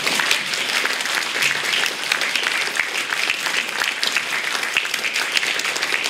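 Audience applauding: many hands clapping in a steady, even patter.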